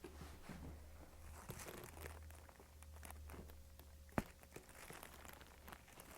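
Faint rustling and shuffling of movement on a chiropractic treatment table over a steady low hum, with one sharp click about four seconds in.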